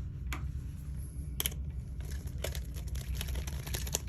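Small scattered clicks and scrapes of an electrical wire and screwdriver being worked into a GFCI outlet's terminal, busier in the second half, over a low steady hum.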